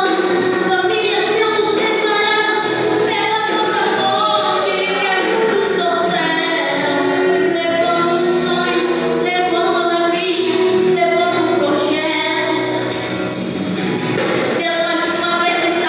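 A female voice singing a gospel worship song over instrumental backing music.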